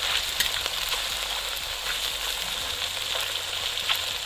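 Small pothi fish deep-frying in hot oil in a kadhai: a steady sizzle with a few scattered pops and crackles.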